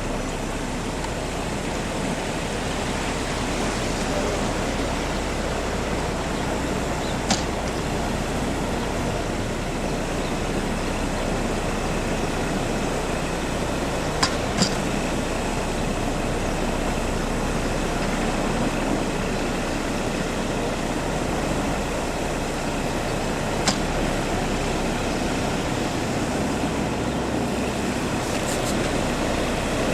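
Steady engine noise from road-work vehicles running continuously, with a few short sharp clicks scattered through it.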